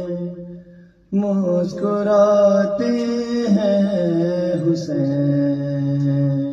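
A man's voice chanting in long, drawn-out held notes that step slowly in pitch. One phrase fades out in the first second, and after a brief pause a new sustained phrase begins.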